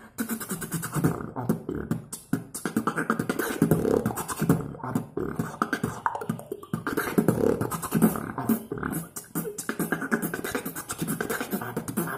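Solo human beatboxing: fast, dense drum-like kicks, snares and hi-hats mixed with deep inward bass tones, performed close into an earphone's in-line microphone.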